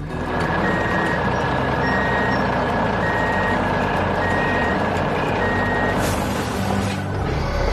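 Truck engine running with a reversing alarm beeping five times, about one beep every 1.2 seconds; the engine and beeps stop about six seconds in.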